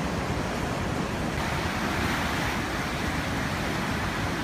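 A steady rush of wind and moving floodwater, with wind rumbling on the microphone.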